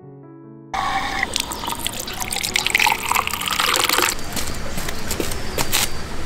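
Water pouring from a bamboo spout and splashing into a stone basin, starting suddenly about a second in, with many small splashes and drips over the steady flow.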